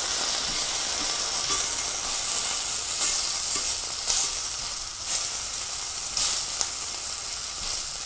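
Food frying in a hot pan: a steady sizzle with scattered pops and crackles.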